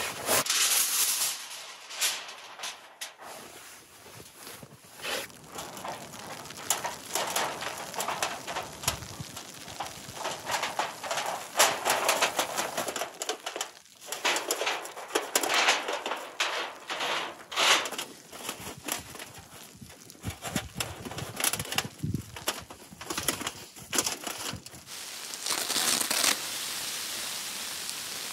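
Gear being handled in snow: rustling and crunching with scattered clicks and light metal clinks as stove-pipe sections and long metal tent poles are moved, then a steady hiss over the last few seconds.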